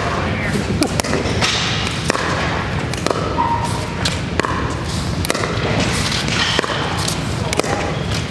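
Pickleball paddles hitting the plastic ball in a doubles rally: a run of sharp, hollow pocks about every half second, in a large gym hall.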